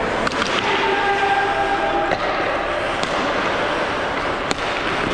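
Pickup ice hockey play: a steady scraping hiss of skates on ice, broken by sharp clicks of sticks and puck, the loudest crack about four and a half seconds in.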